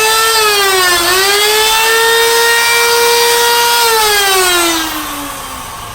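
Power drill motor whining with a hiss over it as it spins up. Its pitch dips under load about a second in, then holds steady, and it winds down, falling in pitch and fading, from about four seconds in.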